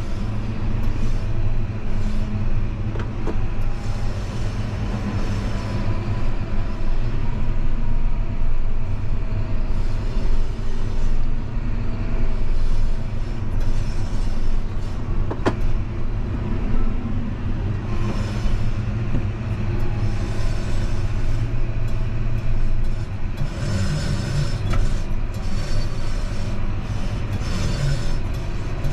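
Vehicle engine running steadily with a low rumble, with light rattles and a single sharp knock about halfway through.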